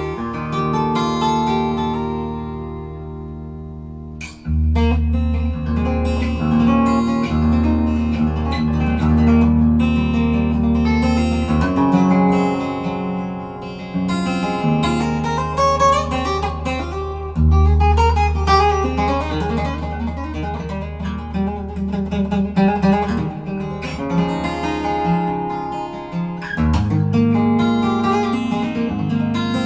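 Solo guitar played fingerstyle in an improvisation: deep bass notes ring under picked melody notes. The playing eases off for a moment a few seconds in, then the low notes come back strongly.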